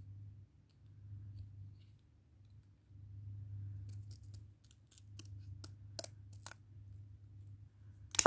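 Scissors snipping through cardboard: a run of sharp snips in the middle, with a louder, short handling noise near the end as the cut piece is lifted. A low steady hum sits underneath.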